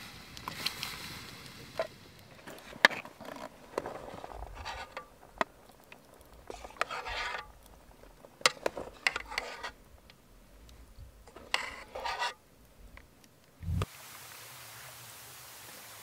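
Irregular clinks, scrapes and rustles of cookware, utensils and gear being handled, with a low thump near the end. It then gives way to a steady hiss of rain.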